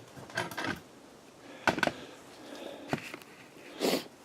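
A few separate knocks and scrapes as 2-inch cinder blocks are handled and set down as wheel stops on a garage floor mat, about four in all.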